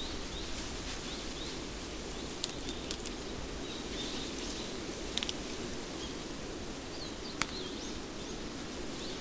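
Forest ambience: small birds giving short, high chirps over a steady low rush, with a few sharp clicks scattered through.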